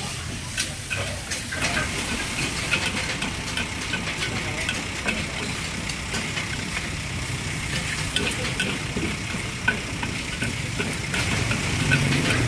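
Char hor fun rice noodles sizzling in a wok, stirred and tossed with a metal spatula and ladle, with frequent scraping clinks of metal on the wok.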